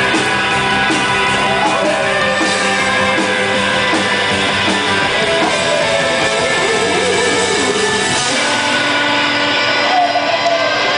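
Live rock band playing loud, with electric guitars and the singer's voice through the PA.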